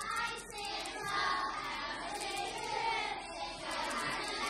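A group of young children singing together, starting suddenly.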